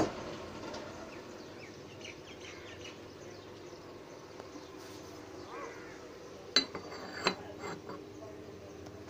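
Ceramic coffee cup set down onto its saucer: two sharp clinks with a brief ring, a little under a second apart, about two-thirds of the way through.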